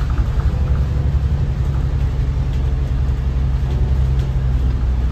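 Bus engine drone heard from inside the passenger cabin: a steady low hum as the bus travels along the road.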